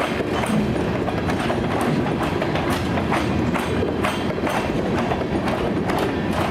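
Covered hopper cars of a freight train rolling past close by: a steady rumble and rattle of the cars, with wheels clacking over the rail joints about two to three times a second. The track is rough and poorly maintained.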